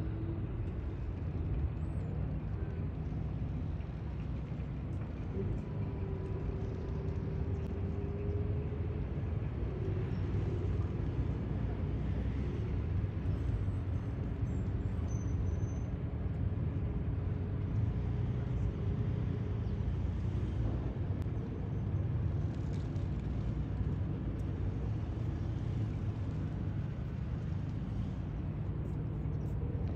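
Steady low outdoor rumble with the sound of vehicles going by.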